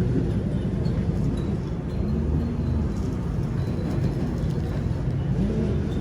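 Steady low machine rumble, with its pitch rising and falling slightly a couple of times.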